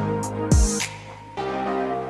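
Background music with steady held notes and a deep kick-drum thump about half a second in, then a brief quieter stretch before the music comes back in.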